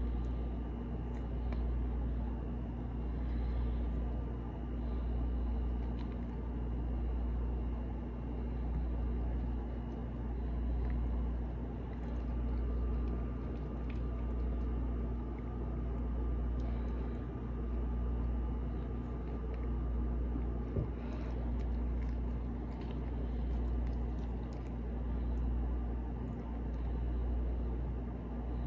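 Steady low machine hum that swells and fades about every two seconds, with a faint higher whine over it. A single light knock comes about two-thirds of the way through, followed by a few faint taps.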